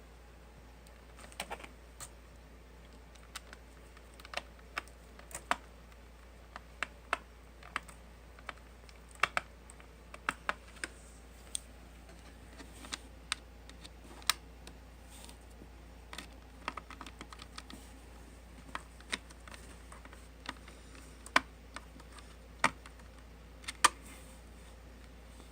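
Irregular sharp clicks and taps of a Phillips screwdriver working screws out of a laptop's plastic screen bezel, with small knocks from handling the laptop.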